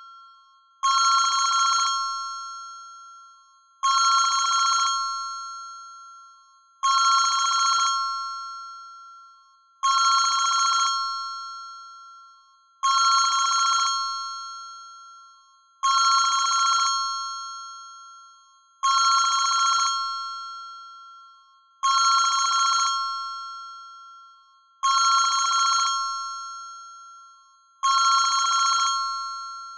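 ZTE WeGo (S155) phone's built-in ringing tone played through its speaker: a bright two-note bell-like ring, about a second long, repeating about every three seconds. Each ring starts suddenly and dies away.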